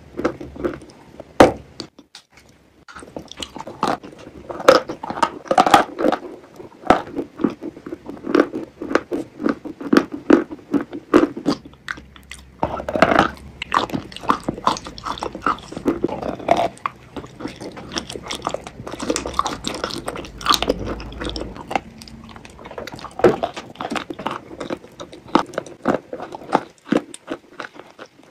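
Close-miked eating sounds: a long run of crunchy bites and chewing, with a short pause about two seconds in.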